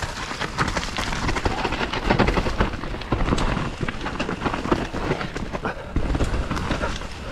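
Santa Cruz Bronson mountain bike riding a dirt trail at speed: tyres rolling and crunching over the ground, with a steady stream of sharp clicks, knocks and rattles from the bike.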